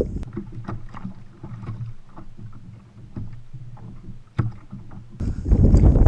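Kayak on the sea: irregular small knocks, clicks and splashes of water and gear against the hull while a fish is reeled in. About four seconds in there is a sharper knock, and a second later wind starts rumbling on the microphone.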